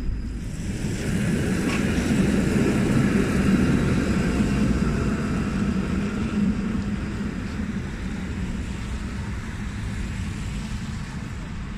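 Tram running past on street track: a rumble of motors and wheels on the rails that builds about a second in, is loudest a few seconds in, then slowly fades.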